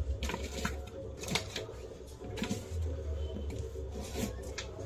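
A blade slitting the packing tape and cardboard of a guitar carton: a run of short, irregular scratching strokes, with a low rumble coming and going underneath.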